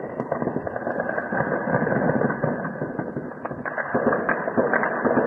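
Sustained distant gunfire: a dense, unbroken crackle of rapid shots, with a few sharper reports from about three and a half seconds in.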